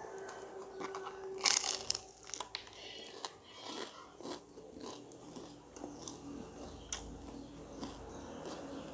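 Biting into a large crispy deep-fried snack: a loud crunch about a second and a half in, then chewing with crackling crunches that grow quieter.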